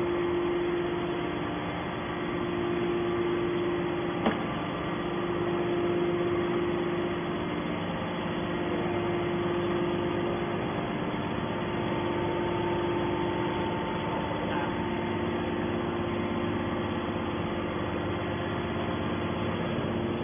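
Hydraulic scrap-metal baler's power unit running with a steady hum and a constant tone, with one sharp click about four seconds in.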